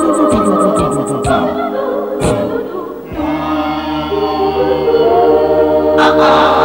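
Opening theme music of a Hong Kong TV drama. A quick drum beat plays, then about three seconds in it changes to long held chords, with a single hit near the end, leading into the sung theme song.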